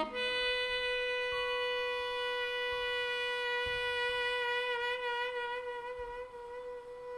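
Music: one long held note with a reedy, wind-instrument sound, steady at first, then wavering slightly in pitch past the middle, and stopping just before the end.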